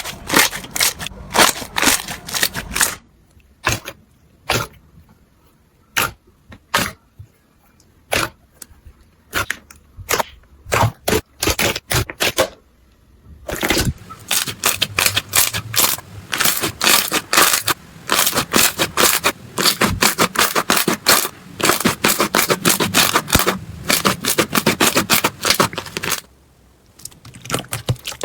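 Slime being pressed and squeezed by hand, giving sharp crackles and pops. The pops come singly and sparse at first, then run together into dense crackling from about halfway until shortly before the end.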